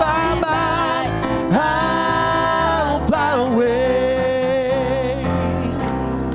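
A man singing a country gospel hymn into a microphone over a live church band of keyboard and electric guitar, holding long notes.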